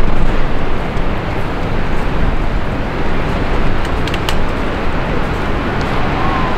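Wind buffeting the microphone: a loud, uneven rushing noise, heaviest in the low rumble.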